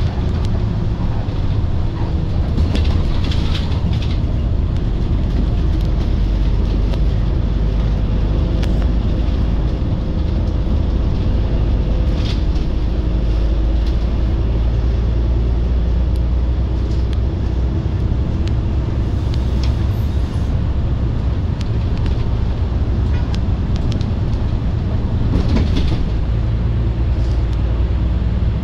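Daewoo BS106 diesel city bus heard from inside the cabin while under way: a steady low engine drone and road rumble, with a few short clicks and rattles.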